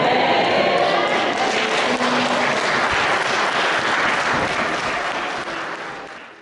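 Congregation applauding, dense and steady, then fading away in the last second.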